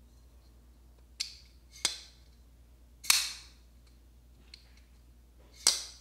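WE Diatomic folding knife being worked open and shut: four sharp metallic clicks of the blade and lock mechanism snapping into place, each ringing briefly, with a couple of fainter ticks in between. The third click, about three seconds in, is the loudest.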